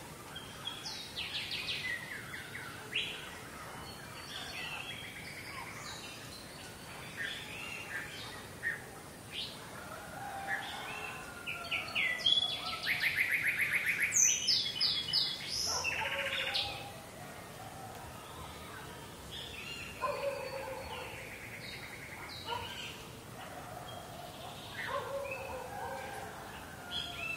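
Rural village morning ambience: many birds chirping and calling at once. The loudest is a rapid run of quickly repeated notes about halfway through.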